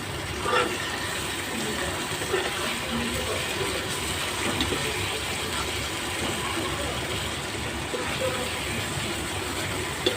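Fish koftas frying in spiced oil in a pan: a steady sizzle, with a few light knocks.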